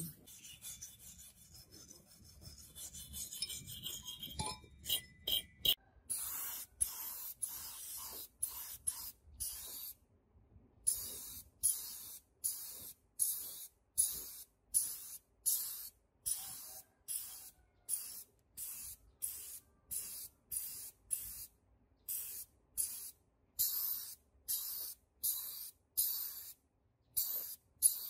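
A wire brush scrubbing rust off a refrigerator compressor's steel shell for the first few seconds. After that comes a compressed-air paint spray gun hissing in short, regular bursts, about one and a half a second, as it sprays the compressor black.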